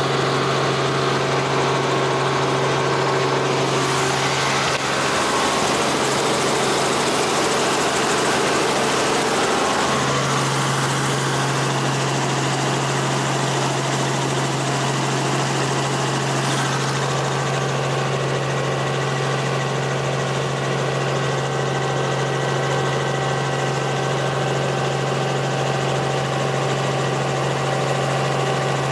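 Helicopter in flight, heard from inside the cabin: a steady engine and rotor drone with a constant low hum. The hum drops away for about five seconds, about a fifth of the way in, then returns.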